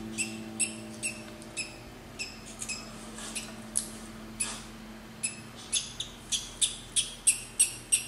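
Newly hatched parrot chick peeping: a quick run of thin, high-pitched cheeps, about three a second, growing louder over the last few seconds.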